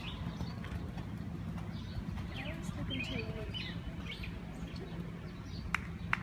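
Small birds chirping a few times over a steady low outdoor hum, with two sharp clicks near the end.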